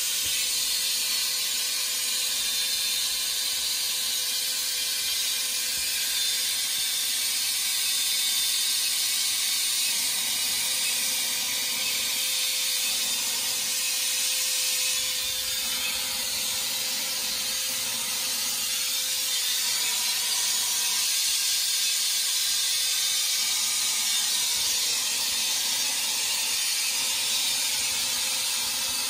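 Steady hiss with a faint steady hum-like tone underneath.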